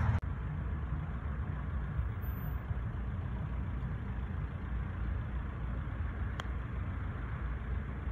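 Steady low outdoor rumble, with a single sharp click about six seconds in: a putter striking a golf ball.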